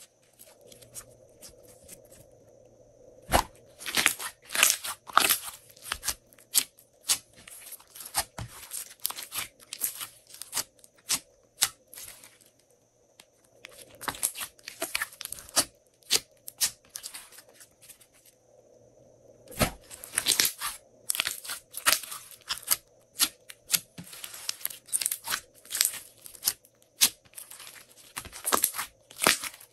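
Glossy slime being stretched, pressed and folded by hand: sticky crackling and popping in clustered bursts with short lulls, and a few louder pops.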